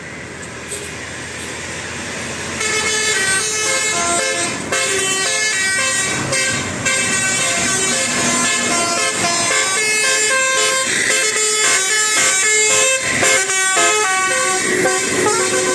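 Bus telolet horn, a multi-tone air horn driven by a Basuri horn module, playing a fast tune of short stepped notes that starts about two and a half seconds in.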